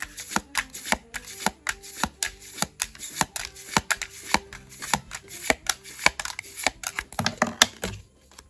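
Pokémon trading cards being flipped through in the hand, each card slid from the front to the back of the stack: a quick, uneven run of crisp card snaps and slaps, several a second, stopping shortly before the end.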